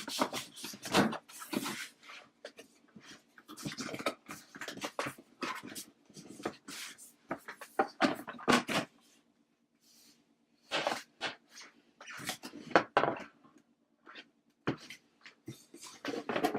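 Cardboard box and packaging being handled: irregular rustling, scraping and knocks as the box is opened and the contents are lifted out, with a few brief squeaky tones.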